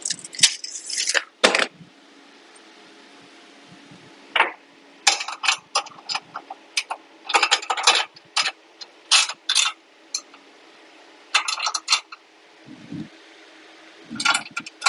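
Metal tools clinking and scraping against a steel Alaskan chainsaw mill frame, in short clusters of sharp clicks: a wrench working the mill's clamp bolts while setting the cut depth.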